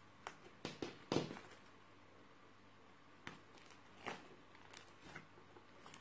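Foamy white dish-soap and glue slime squished and folded by hand, giving a scattered series of small pops and clicks, the loudest about a second in.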